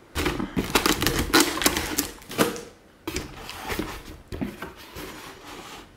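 Taped cardboard shipping box being opened: packing tape pulled loose with rapid crackling and clicking, then quieter rustling as the cardboard flaps are folded back.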